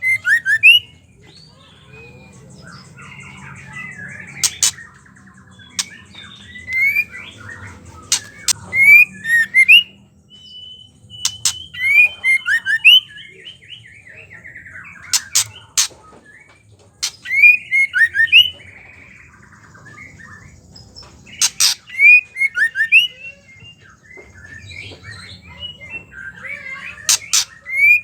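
Female white-rumped shama's harsh chattering call (ketrekan): clusters of short, sharp notes repeated every few seconds, with a thin held whistle about ten seconds in.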